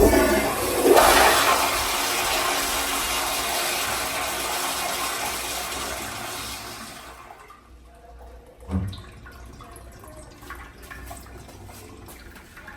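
Commercial flush-valve (flushometer) fixture flushing: a sudden rush of water that tapers off over about seven seconds, followed by a short thump about nine seconds in.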